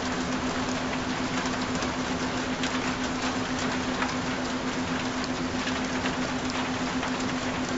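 Steady rain falling, an even hiss with scattered individual drops pattering, and a steady low tone held underneath it.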